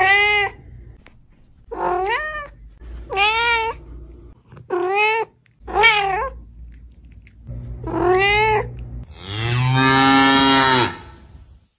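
Domestic cat meowing six times, each call short and rising then falling, followed near the end by a cow's single long moo.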